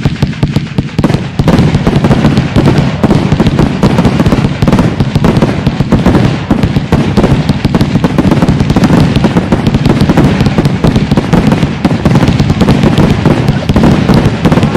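Fireworks display at full intensity: a loud, dense, unbroken barrage of bangs and crackling from many shots fired in quick succession.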